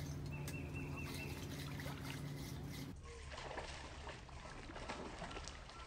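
Lake water lapping and trickling at the shoreline. A steady low hum stops abruptly about three seconds in, leaving the water sounds.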